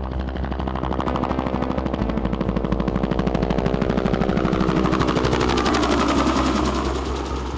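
Sound-effect track of rapid automatic gunfire: a fast, steady rattle of shots over a low steady hum, with a sound sweeping down in pitch in the second half.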